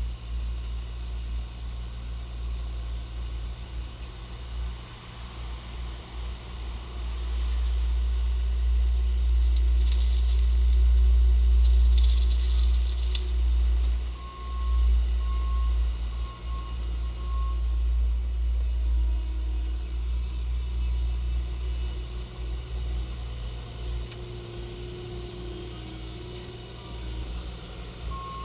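Bobcat T870 compact track loader's diesel engine running steadily, getting louder for several seconds partway through. Its reverse alarm beeps repeatedly for a few seconds just past the middle and again right at the end.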